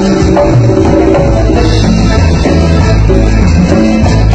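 Cumbia band playing live, with hand drums and guitar over a steady beat.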